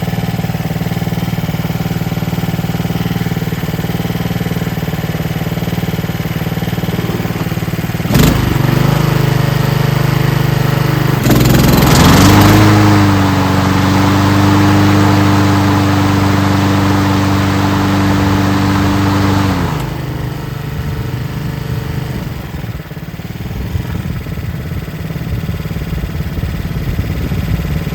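Honda HRN216 mower's single-cylinder engine running steadily. About eight seconds in a sharp clunk as the Roto-Stop blade clutch engages; the engine pitch steps down under load and the sound grows louder with the spinning blade, until about twenty seconds in, when the blade is stopped and the engine settles back to a quieter steady run.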